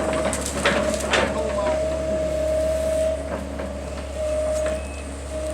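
A heavy tree-removal machine running, its engine a steady low drone under a steady high whine, with several sharp cracks of breaking wood in the first second or so as it pushes into the trees.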